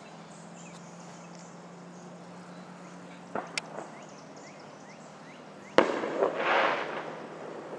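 Fireworks going off in the distance: a couple of faint pops about halfway through, then a single sharp bang a little before the end, followed by about a second of rumbling echo.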